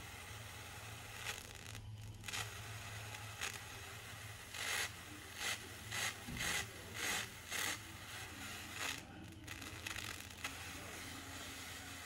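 Small solid-state Tesla coil (single IRF640 MOSFET) running, its brush discharge from a nail breakout point giving a steady crackling hiss over a low hum. About halfway through come about six louder crackling bursts, roughly two a second, as a finger is brought near the discharge.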